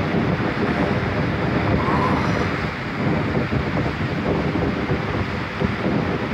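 Wind buffeting the microphone over the continuous wash of surf breaking against shoreline rocks.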